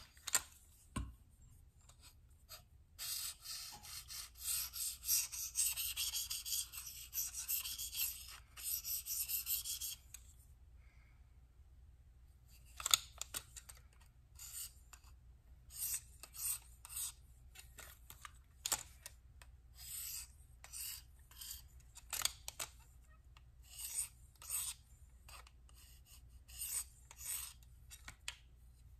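Handling noise from a folding knife being fitted into a sharpener's clamp. About three seconds in comes a stretch of several seconds of continuous scratchy rubbing; after a short pause there is a run of short scrapes and clicks, about one a second.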